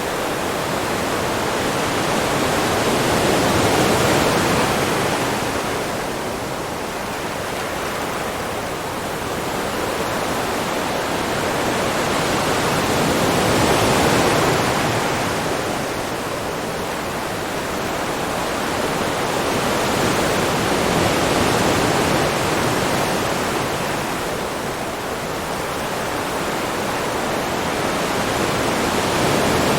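Ocean waves: a continuous rush of surf that swells and eases slowly, cresting four times, about every eight to ten seconds.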